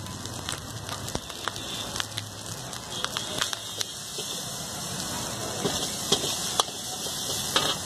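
Rice, Manchurian balls and vegetables sizzling in a hot wok, with a metal ladle scraping and knocking against the wok as the rice is stirred through. The ladle knocks come several times, sharpest near the end.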